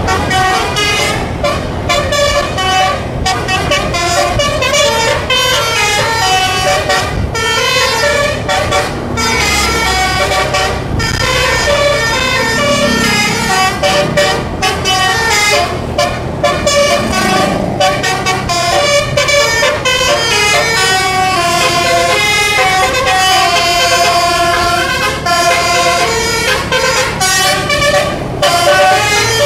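Bus 'telolet' horn, a Basuri multi-tone air-horn set, playing a long run of quickly changing notes, several pitches sounding together like a tune, with the bus's engine rumbling underneath.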